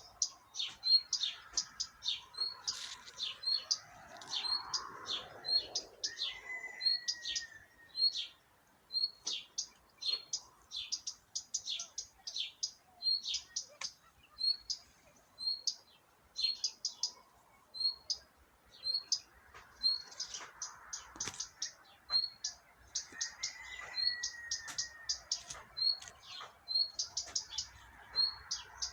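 Small birds chirping nonstop: short, high chirps repeating several times a second, with a lower falling call twice.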